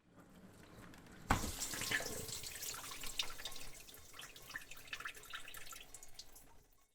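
Water running from a tap into a sink. It starts faintly, comes on suddenly about a second in, and splashes and patters irregularly before fading out.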